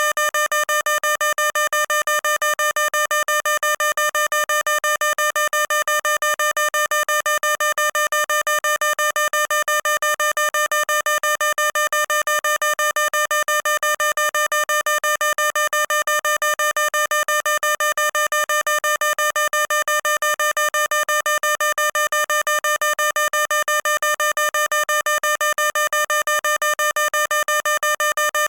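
Fire alarm sounding: a single electronic tone beeping on and off very rapidly and evenly, many times a second, without a break.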